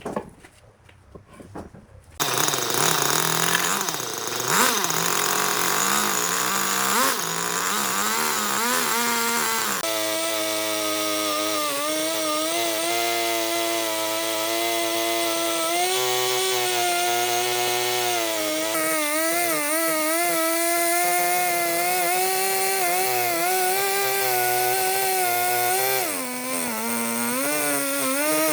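Chainsaw starting about two seconds in and running while it cuts wood. Its pitch wavers and dips several times as the chain bogs down in the cut.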